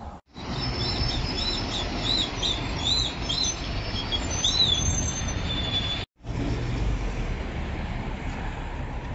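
City street traffic noise with vehicles passing, carrying a low rumble. Through the first six seconds a run of short, high chirps repeats about twice a second, each rising and falling. The sound drops out for an instant near the start and again about six seconds in.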